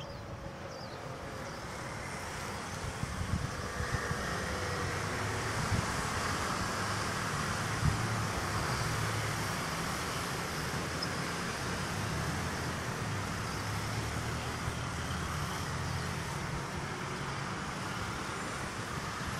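Steady traffic rumble from motor vehicles, growing a little louder over the first several seconds and then holding.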